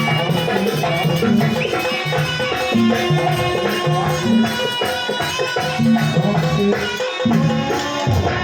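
Jaranan music: a Javanese gamelan-style ensemble of drums and tuned gongs and metallophones playing at full tilt, low notes repeating in a steady pulse under ringing higher tones.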